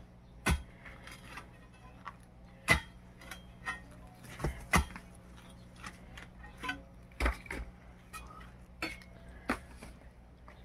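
A hand tool striking and shifting broken concrete rubble and stones: a dozen or so irregular sharp clinks and knocks.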